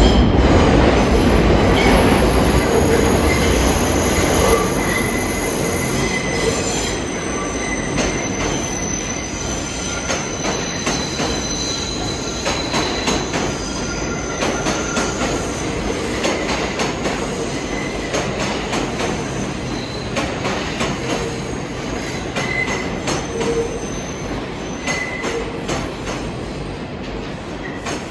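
R142-family New York City Subway train running through the station, its wheels squealing in several high intermittent tones over a dense clatter of wheels clicking over the rail joints. It is loudest at the start and grows gradually quieter.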